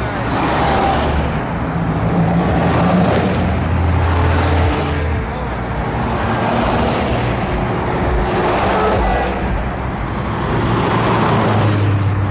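Parade vehicles driving past one after another, a continuous low engine drone that swells and eases as each group goes by.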